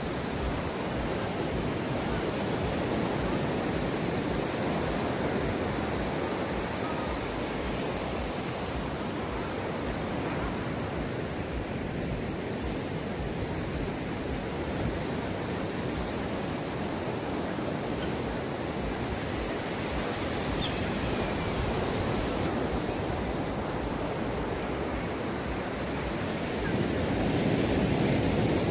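Ocean waves washing onto the shore in a steady surf, with wind buffeting the microphone; the surf swells louder near the end.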